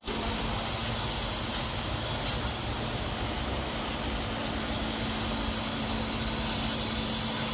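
Inverter heat pump unit running, with a steady hum over a constant rush of air.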